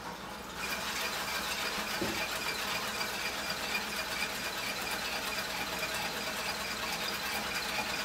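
Water-powered Kenner Jet Action Easy Wash toy dishwasher running with its lid off. Faucet-fed water jets spray the dishes and spin the plastic dish rack fast, a steady rushing spray with a thin high whine over it. It picks up about half a second in.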